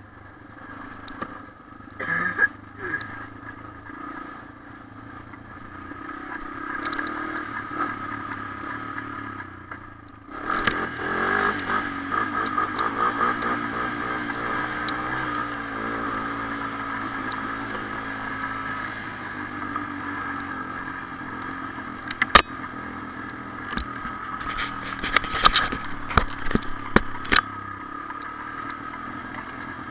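Honda TRX250 ATV engine running on a rough dirt trail, getting louder about a third of the way in. Several sharp knocks and rattles come from the bumpy ride in the last third.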